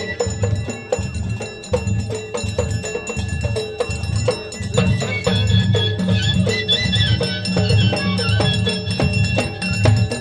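Ahwach music: a fast, even beat of struck percussion with strong low drum tones and steady metallic ringing above.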